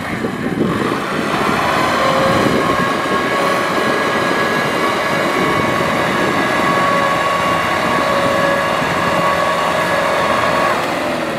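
Kubota tractor's diesel engine running steadily under load as the tractor works its wheels through deep mud. Its engine note drops near the end.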